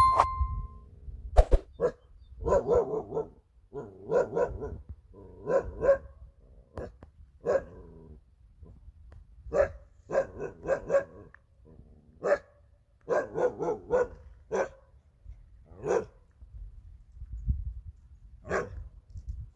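A dog barking repeatedly: single barks and quick runs of two to four, coming about once a second with short pauses between.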